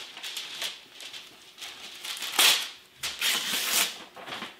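Wax paper being pulled off its roll and handled over the plan, rustling and crackling in a run of short bursts, the loudest about halfway through and a longer one shortly after.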